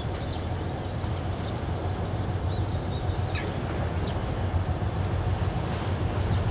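3TE10M diesel locomotive's two-stroke 10D100 engines running with a steady low rumble as it approaches, growing slightly louder toward the end. Birds chirp several times over it.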